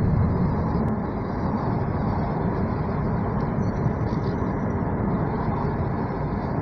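Car driving along a paved street: steady road and engine noise with no changes.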